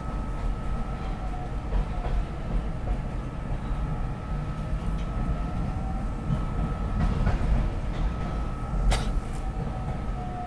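Market-Frankford Line elevated train running between stations, heard from inside the car: a steady low rumble with a constant high tone and a few sharp clicks from the wheels over the rails, the sharpest about nine seconds in.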